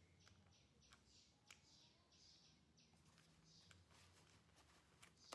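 Near silence: faint room tone with a few soft clicks and light rustles.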